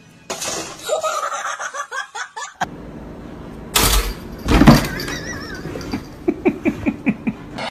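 A run of short sliding cries, then two loud knocks, and near the end a person laughing in quick bursts.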